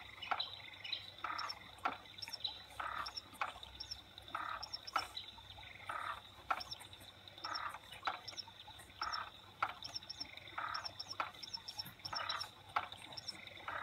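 Faint recorded nature sounds from an infant swing: chirping and croaking calls with soft clicks, repeating in a regular rhythm about every second.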